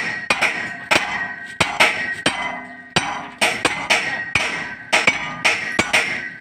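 Sledgehammer striking the end of a long steel bar used as a drift, about two ringing metal-on-metal blows a second, to knock a damaged bearing out of a one-bagger concrete mixer's drum.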